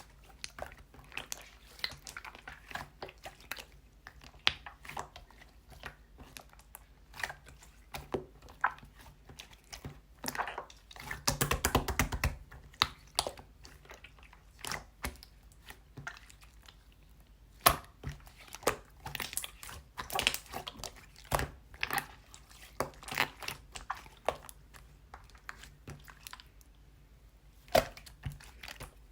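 Irregular sharp crunches and clicks at varying loudness, busiest about eleven to thirteen seconds in.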